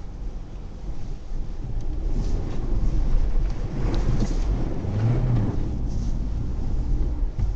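Two-wheel-drive Hyundai Tucson driving off-road over rough ground: a low rumble of engine and car body, getting louder and rougher toward the middle.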